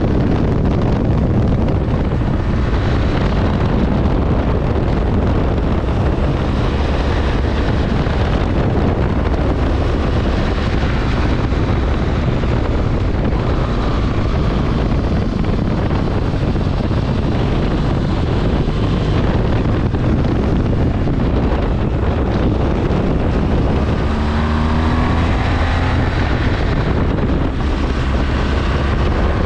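BMW R1200GS Adventure boxer-twin engine running under way with heavy wind noise on the microphone; the engine note rises near the end as the bike accelerates.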